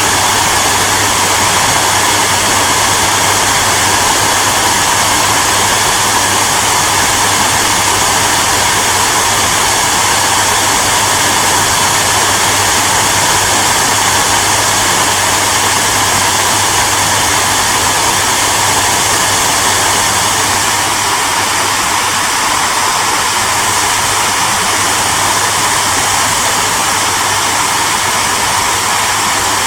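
Hair dryer running steadily: a continuous rush of blown air over a low motor hum, easing slightly in level about two-thirds of the way in.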